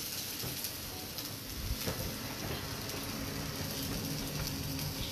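Sliced eggplant, onion and king trumpet mushroom sizzling steadily in hot oil in a stainless steel wok, with a couple of faint knocks.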